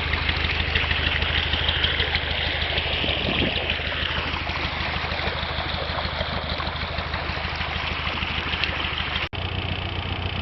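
Narrowboat engine idling steadily with an even low pulse. Near the end the sound cuts out for an instant.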